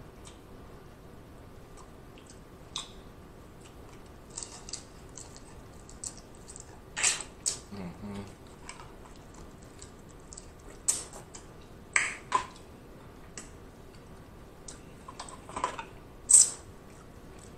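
Close-miked eating sounds: scattered wet mouth smacks and clicks while eating king crab leg meat. Near the end there is a sharp snip, the loudest sound, as kitchen scissors cut through a crab leg shell.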